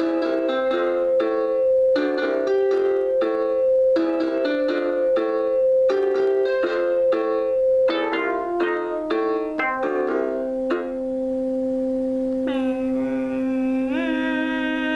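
Synthesizer music: a quick repeating pattern of short, plucked-sounding notes over a steady held note. After about ten seconds the pattern stops and sustained tones take over, with notes sliding up into held pitches near the end.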